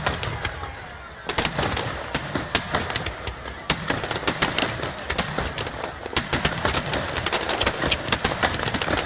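Fireworks going off in rapid succession, a dense run of sharp cracks and bangs that starts about a second in and keeps up thickly.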